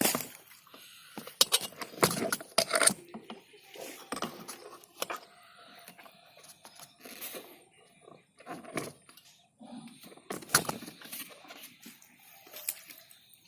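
Irregular clicks, knocks and rustles from close handling, some in quick clusters with quieter gaps between.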